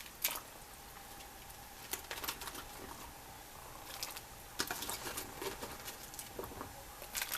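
Cauliflower florets being dropped into a pot of water: a scatter of small splashes and knocks coming in irregular clusters.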